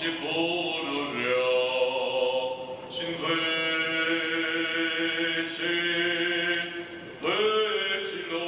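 Eastern Orthodox priest chanting the wedding service from a service book: a single voice singing slow liturgical chant in long held notes.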